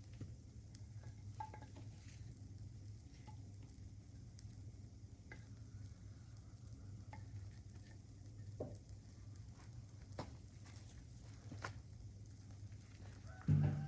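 Faint crackling with scattered small ticks over a steady low hum, then a rooster starts crowing loudly near the end.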